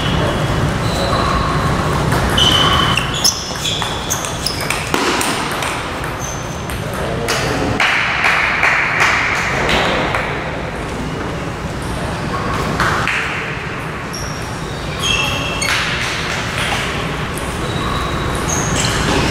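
Table tennis ball being hit back and forth, clicking sharply off bats and table in quick, irregular strokes.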